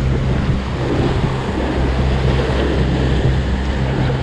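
Sea surf breaking and churning against the rocks below, loud and steady, with wind rumbling on the microphone.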